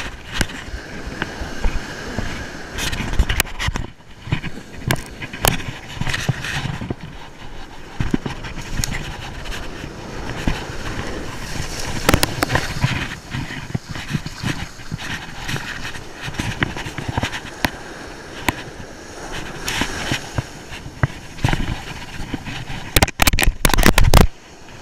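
Wind buffeting and shirt fabric rubbing over a body-worn action camera's microphone, with irregular knocks and rustles, over waves washing up the beach. A close burst of loud rubbing and knocks comes near the end.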